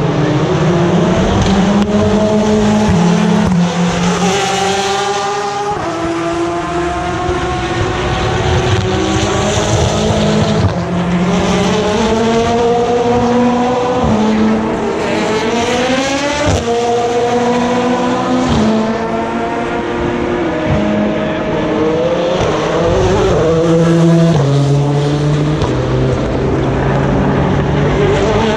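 Endurance race cars taking a slow corner one after another, their engines dropping through the gears and then revving up through the gears as they accelerate away, with several cars' engine notes overlapping.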